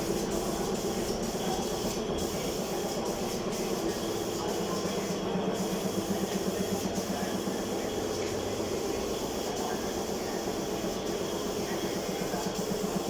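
Workshop machinery running steadily, a hiss over a low hum with a fast, even pulsing.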